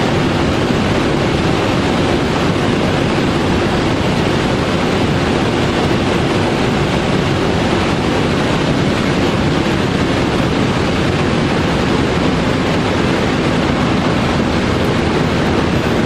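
Cabin noise of a BMW E39 530i at its top speed of about 250 km/h: a steady, loud rush of wind and road noise over the 3.0-litre straight-six running near 6,000 rpm. Near the end the engine eases off as the speed falls.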